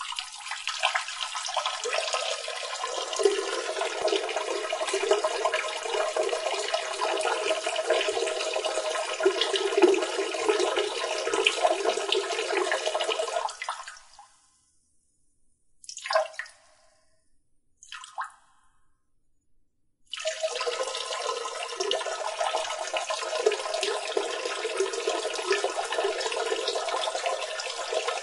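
Water running steadily, then cutting off about halfway through. After two brief spurts a few seconds apart, it starts running again.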